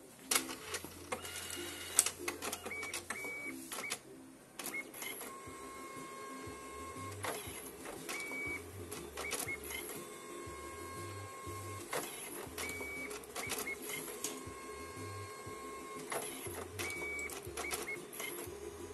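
Evolis Zenius card printer printing a PVC card, making its passes over the card one colour at a time: stop-start motor runs broken by sharp clicks and short high whines.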